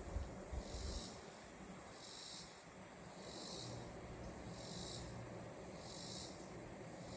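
Honeybees humming at a hive, a low steady drone, over a high pulsing insect chorus that swells and fades about once a second. A few low thumps in the first second.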